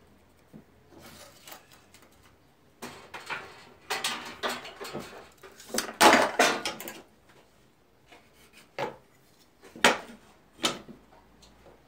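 Hand tools being handled on a wooden workbench while a board is marked out: irregular knocks, rubbing and clatter as a tape measure, pencil and try square are moved, set down and picked up, busiest and loudest about six seconds in, with a few sharp single knocks near the end.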